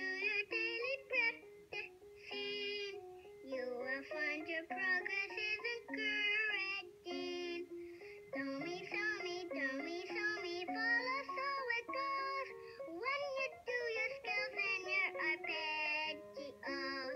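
A children's song: voices singing a melody with wavering, vibrato-like notes over instrumental backing.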